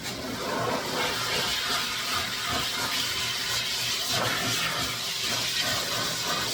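Dog-grooming blow dryer blowing air on a puppy's damp coat: a steady hiss that comes on at the start.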